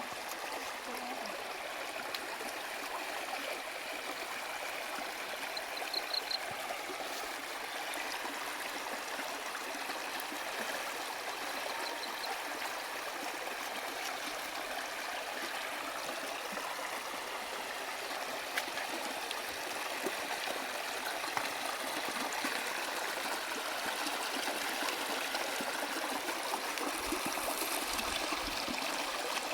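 Stream water flowing and trickling over rocks, a steady rushing that does not change, with a brief run of faint high pips about six seconds in.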